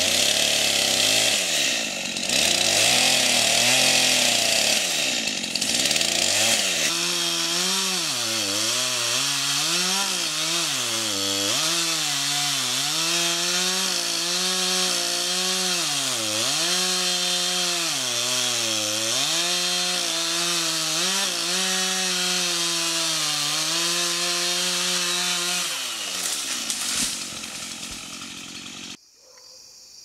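Stihl two-stroke chainsaw cutting into a small tree trunk, its engine speed repeatedly dropping under load in the cut and climbing back again. Near the end the engine falls away and the sound cuts off suddenly.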